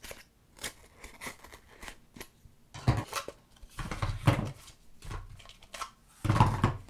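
Small cardboard boxes being opened and handled: paperboard scraping and rustling as box parts are pulled apart, with a few soft knocks as pieces are set down on the table, the loudest near the end.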